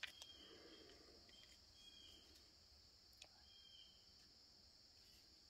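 Near silence: a faint, steady chorus of insects chirring in the evening, with a few faint clicks near the start and once about three seconds in.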